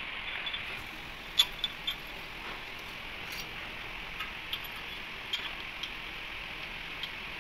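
Light metallic clicks and taps of a nut being turned by hand onto a bolt on a steel pipe flange, irregular and a few seconds apart, the sharpest about a second and a half in, over a steady hiss.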